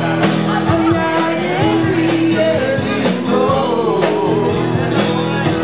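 Live rock band playing: drums keeping a steady beat under guitar, with a singing voice wavering through the middle.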